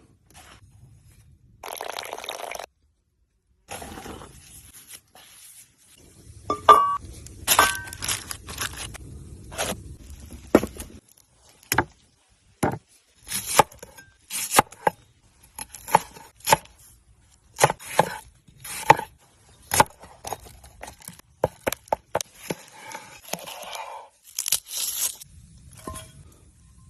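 Food preparation with cooking utensils: irregular sharp knocks, a few every couple of seconds in the second half, mixed with scraping and rustling.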